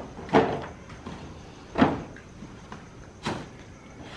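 Three sharp knocks about a second and a half apart: cardboard boxes of firecrackers being handled and set down among others on a cot.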